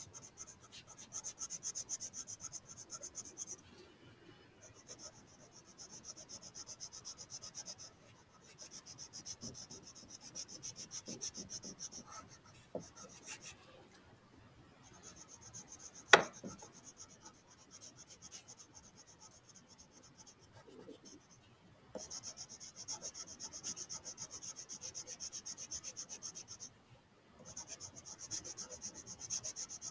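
Crayon colouring on paper: fast back-and-forth scratchy strokes in stretches of a few seconds with short pauses between them. One sharp tap about halfway through is the loudest moment.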